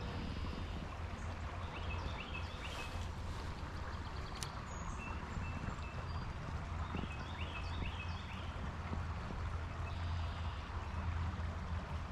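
Creek-side outdoor ambience: a steady low rumble with a hiss over it, and a songbird giving two short runs of quick chirps, about two and a half seconds in and again about seven seconds in.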